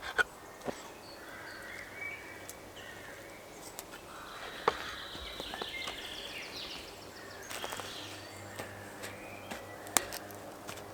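Outdoor woodland ambience with faint bird calls and a few sharp clicks and knocks scattered through it.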